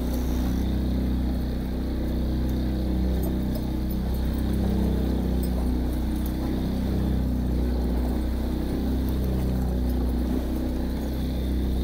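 A boat engine running steadily at trolling speed, a low even hum with wind and water noise over it.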